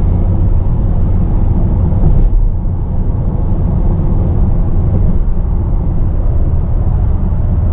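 Steady road and engine noise inside a Volkswagen van's cab cruising at motorway speed, a loud low rumble with no change in pace.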